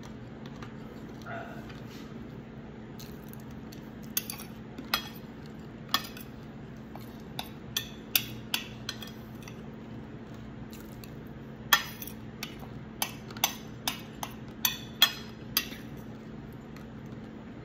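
A metal spoon clinks and scrapes against a plate in scattered sharp clicks. They come thickest about four to six seconds in and again from about twelve to sixteen seconds. A steady low hum runs underneath.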